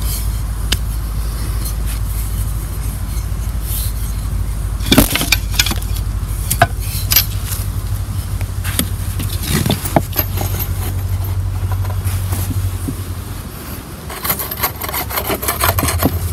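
Wooden buck-saw parts being handled on a tree stump, with a few sharp wooden knocks about five, six and ten seconds in, over a steady low rumble. Near the end there is a run of quick light clicks and scrapes as the saw blade and strut are handled.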